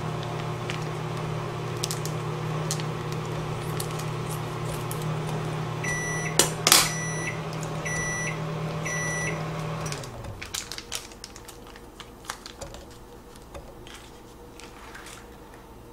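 Microwave oven running with a steady hum, beeping three times about a second apart, with a sharp click between the beeps; its hum then winds down and stops. Light clicks and clinks follow.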